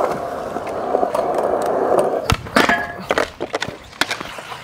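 Skateboard wheels rolling on concrete, then a sharp pop about halfway through followed by several clacks of the board against the flat bar and the ground as a trick is tried.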